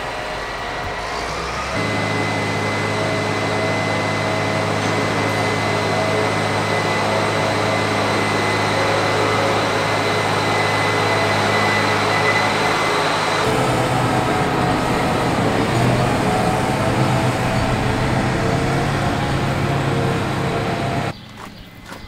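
Diesel engine of a large farm machine running steadily, with a steady high whine over it. Its pitch pattern changes about halfway through, and the sound cuts off sharply just before the end.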